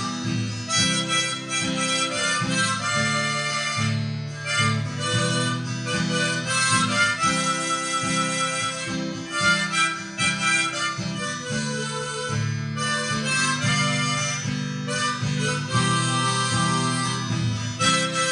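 Harmonica playing a melody in sustained notes over acoustic guitar accompaniment, as a solo instrumental passage.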